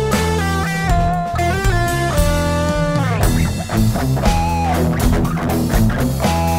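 Improvised instrumental rock jam: electric guitar playing held lead notes, with a slide in pitch about three seconds in, over bass guitar and drum kit.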